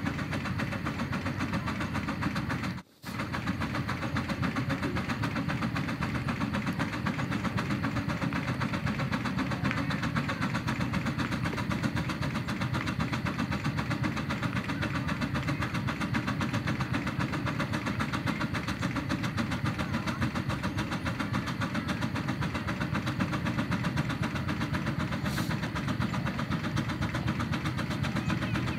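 Miniature reproduction Case steam engine working hard, its exhaust chuffing in a fast, steady stream that drafts the fire and throws a fountain of sparks from the stack. The sound cuts out for a moment about three seconds in.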